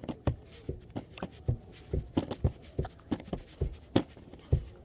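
A quick series of soft knocks and thumps close to the microphone, about three a second and uneven in strength, with the loudest one near the end.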